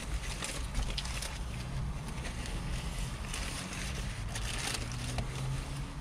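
Paper sandwich wrapper crinkling in short bursts, with a sharp click about a second in, over a steady low hum in a car's cabin.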